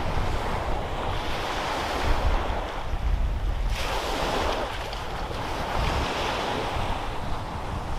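Small waves breaking and washing up a sandy beach, with wind buffeting the microphone as a low rumble.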